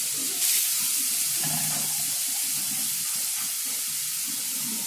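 Grated beetroot sizzling in hot ghee in a frying pan, a steady hiss that gets a little louder about half a second in.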